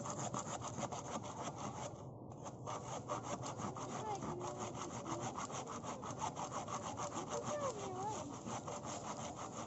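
Hand saw cutting through wood in quick, even back-and-forth strokes, with a brief pause about two seconds in.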